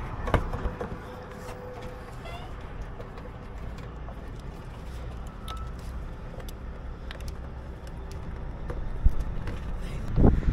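Scattered clicks and light knocks of hands and a tool refitting parts in a car's engine bay, over a steady low outdoor rumble. A louder knock comes about nine seconds in and another just before the end.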